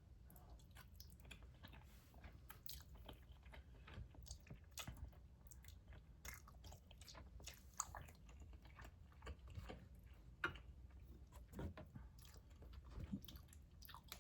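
A person chewing instant noodles close to the microphone, soft and faint, with many small wet mouth clicks scattered irregularly throughout.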